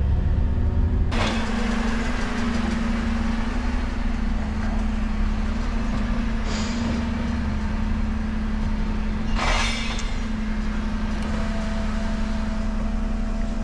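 Dennis Elite refuse truck's engine running steadily with a constant hum, heard inside the cab. Sudden bursts of noise cut in about a second in, and again about midway and a few seconds later. A faint whine comes in near the end.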